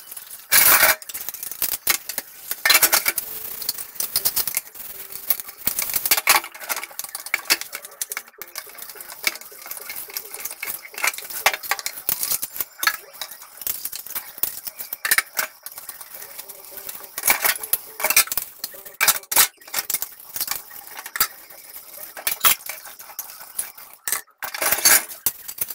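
Dishes being washed at a kitchen sink: metal pots, plates and cutlery clattering and knocking against each other again and again, with tap water running.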